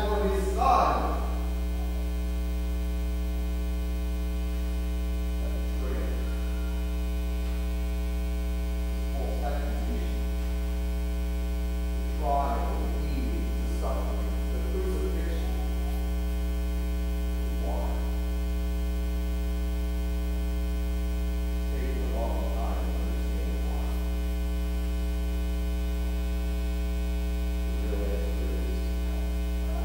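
Loud, steady electrical mains hum with a buzz of overtones in the sound system, with a man's voice faint and broken beneath it.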